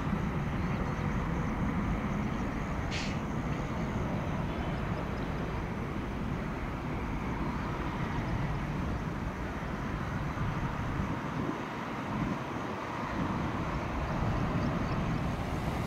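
Steady low rumble of jet airliner engines and road traffic from motorbikes and a car passing beside an airport perimeter fence, with a brief hiss about three seconds in.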